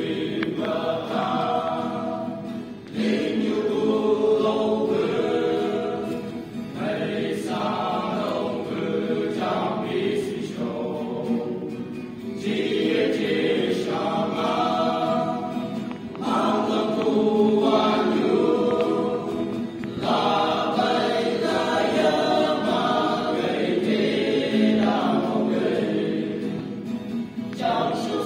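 A group of men singing a Naga folk-fusion song together in chorus, in sung phrases of a few seconds with short breaks between them.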